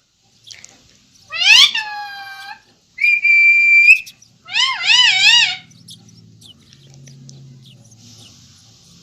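Ringneck parakeet calling three times: a call that sweeps up then down, a held high whistle about a second long, then a quick wavering call.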